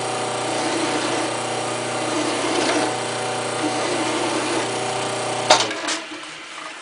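Wood lathe motor running with a steady hum while a hand file rasps against the spinning aluminium rod, taking it down in diameter. About five and a half seconds in there is a sharp click, and the lathe's hum dies away.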